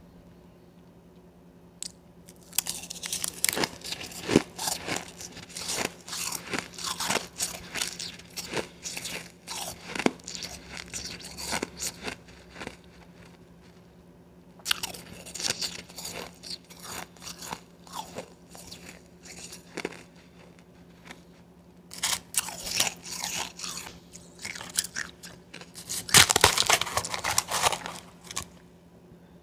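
Close-up crunching and chewing of a mouthful of blender-crushed ice, starting about two seconds in and coming in three runs of dense, crisp crunches with short pauses between, loudest near the end.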